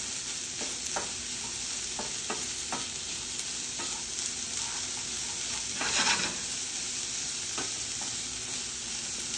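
Cauliflower rice sizzling in sesame oil in a stainless steel skillet while a wooden spatula stirs it, tapping and scraping the pan now and then, with a louder scrape about six seconds in.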